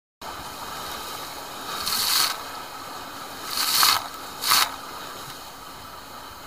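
Water swishing and splashing against a camera held just above the sea beside a boat's hull: a steady wash of water noise with three louder splashes, about two, three and a half and four and a half seconds in.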